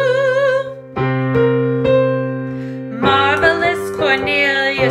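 A woman singing a song phrase with vibrato over sustained electric piano chords. The voice drops out about a second in while the chords keep ringing, then comes back near three seconds.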